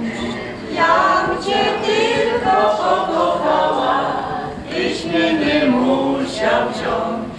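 A group of people singing together without accompaniment, in sung phrases with held notes.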